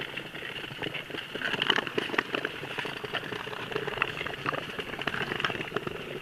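Tour skates' blades scraping and gliding over thin new clear lake ice, with many irregular sharp ticks from the skaters' pole tips striking the ice.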